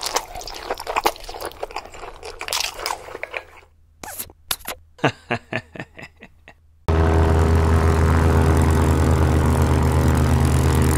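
Sharp clicks and short crunchy scrapes as small pieces are set down on a metal baking tray. About seven seconds in, a light propeller plane's engine comes in suddenly and drones loud and steady.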